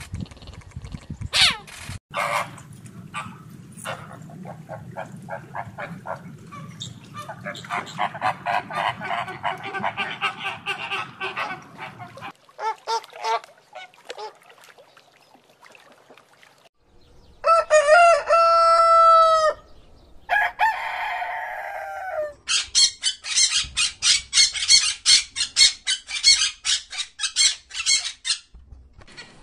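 A series of animal calls. First, cheetah sounds with quick repeated calls over a low steady rumble. About halfway through, loud honking calls of flamingos, then a fast run of harsh chattering calls.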